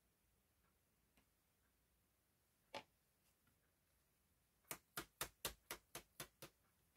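A card being tapped over a plastic tub to knock loose embossing powder off a stamped sentiment: one sharp tap a little before the middle, then a quick run of about nine sharp taps near the end.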